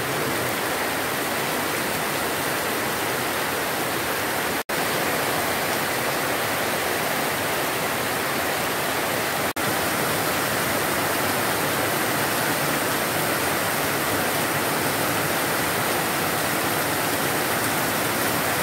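Heavy tropical downpour: a steady hiss of rain pelting flooded ground, with roof runoff pouring in a stream and splashing into a puddle. The sound cuts out for an instant twice.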